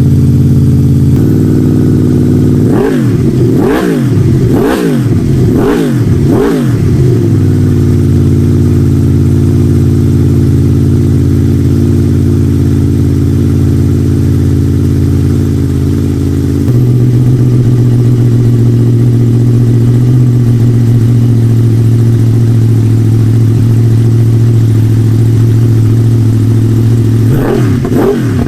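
Honda VFR800 VTEC V4 engine through a Leo Vince exhaust with the dB killer removed. It idles, is blipped five times in quick succession about a second apart a few seconds in, then settles back to idle. The idle note shifts about two-thirds of the way through, and another rev starts near the end.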